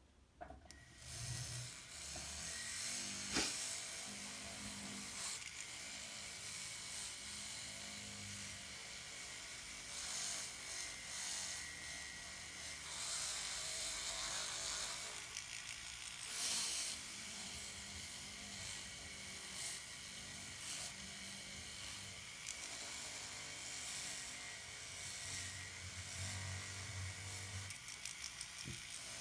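Rotary tool handpiece running a mounted flannel buff charged with polishing compound against a wire-wrapped silver pendant, polishing it. A steady whine starts about a second in.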